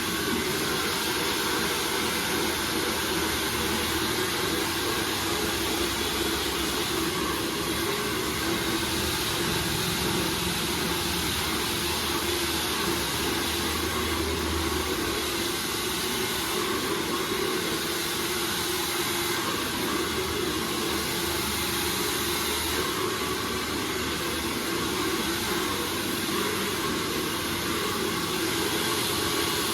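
Handheld hair dryer running steadily: a rush of blown air with a faint motor hum underneath.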